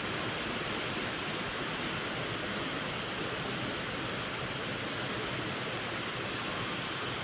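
A steady, even hiss with no other sound in it, band-limited like audio recorded over a phone line.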